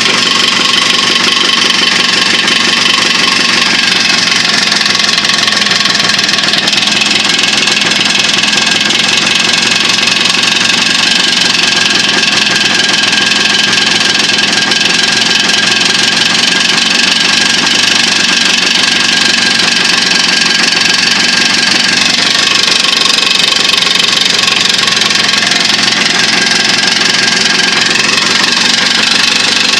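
Jawa motorcycle's two-stroke twin-cylinder engine running at a steady speed with a knock in it, despite a freshly bored cylinder, new pistons, pins and needle bearings; the owner cannot tell what is knocking.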